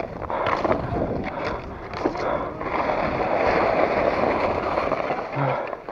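Cross-country skate skis and poles on packed snow: rhythmic strokes for the first couple of seconds, then a steady hiss of the skis sliding for a few seconds, with wind on the microphone.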